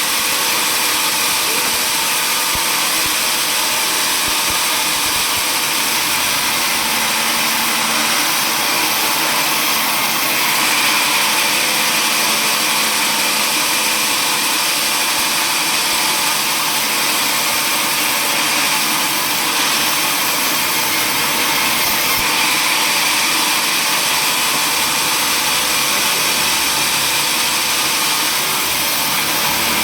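Table saw running steadily, a loud, even machine noise with no breaks.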